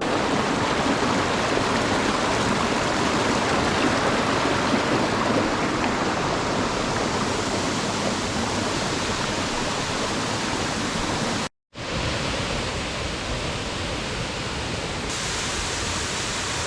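Leghvtakhevi Waterfall's water rushing and splashing as a steady roar. It cuts out briefly about two-thirds of the way through, then carries on a little quieter.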